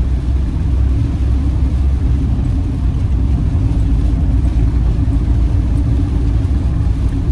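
Steady engine and road rumble inside a moving campervan's cab, heavy in the low end and with no changes.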